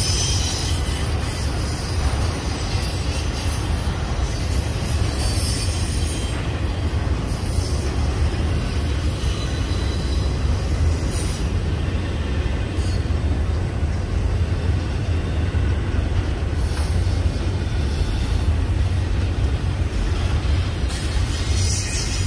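Union Pacific double-stack intermodal freight train rolling past, its container well cars making a steady low rumble on the rails. High-pitched wheel squeal comes and goes, strongest at the start and again near the end.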